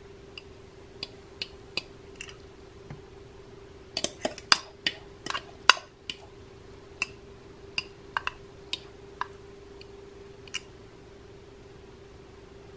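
Metal fork scraping and tapping against a glass measuring cup as thick batter is pushed out of it: a scattered run of light clinks and clicks, thickest about four to six seconds in, over a faint steady hum.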